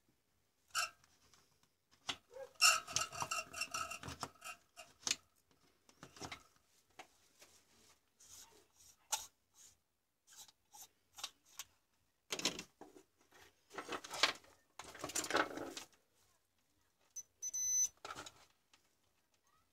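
Handling noise of a compact fluorescent bulb and its plastic lamp socket on a workbench: scattered clicks, taps and rubbing, with a brief ringing clatter about three seconds in.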